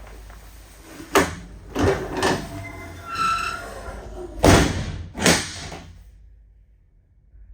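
A welfare cabin door being worked: a series of sharp knocks and clunks, the loudest two in the second half, with a short squeak about three seconds in.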